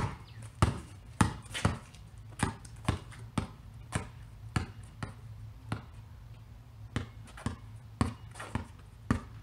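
Basketball bouncing on a concrete driveway, dribbled on the move about twice a second in behind-the-back dribbles. The bounces grow fainter midway as the ball moves away and louder again as it comes back.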